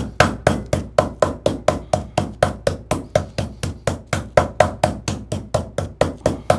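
A light meat mallet pounding boneless chicken breast flat on a wooden cutting board, a quick, steady run of thuds at about five strikes a second. The breast is being beaten into a single thin piece for rolling.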